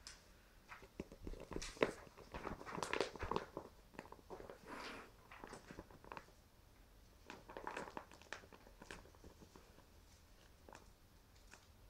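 A bag rustling and crinkling in irregular bursts as a cat moves about inside it, busiest in the first few seconds and again later on.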